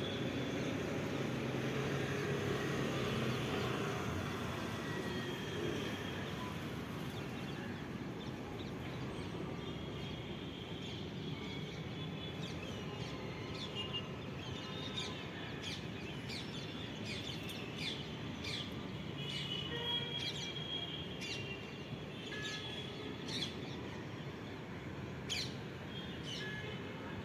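Birds chirping and calling over a steady background of outdoor noise, the short calls coming thicker from about halfway on.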